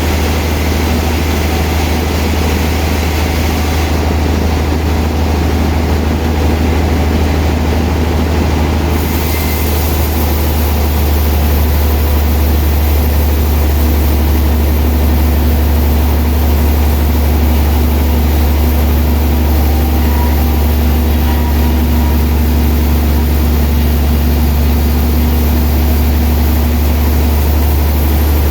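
Sawmill machinery running steadily while a large, old log is sawn, with a strong deep hum. The sound grows a little louder about eleven seconds in.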